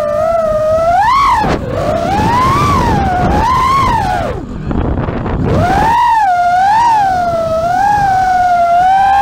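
FPV quadcopter's brushless motors whining, the pitch gliding up and down as the throttle is punched and eased off, dropping sharply twice. A rushing wind noise on the onboard microphone swells during a dive from about a second and a half in to the middle.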